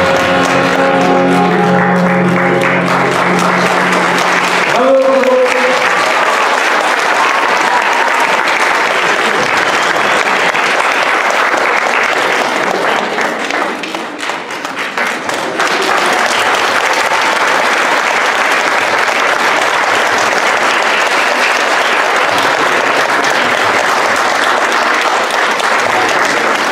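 Audience applauding, with the dance music ending on a final note about five seconds in; the clapping dips briefly about halfway through and then comes back as strong as before.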